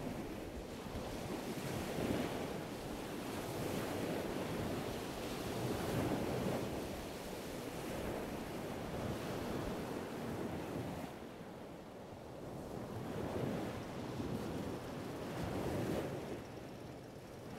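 Rushing water and waves with wind, an unbroken noise that swells and ebbs every few seconds.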